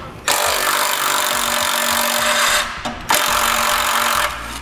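Cordless power driver with a 10 mm socket running in two bursts, a long one of about two and a half seconds, then a short pause and a second of about one second. It is backing out a bolt that holds a cover on the bumper.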